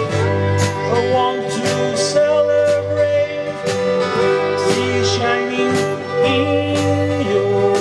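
Country-style band music led by guitar, with a melody that slides between notes over a steady rhythmic strum.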